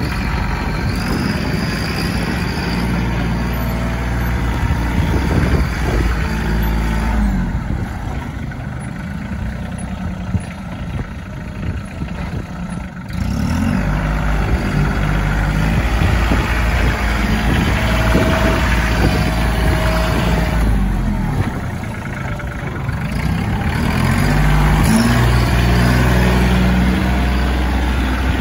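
Bobcat CT335 compact tractor's diesel engine running as it is driven and worked, revving up and down several times. It is quieter for a few seconds near the middle.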